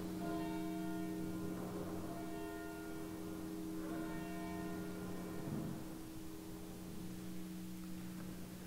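Church bell tolling slowly: about four strokes, roughly two seconds apart, each ringing on with a long hum, then the ringing fades.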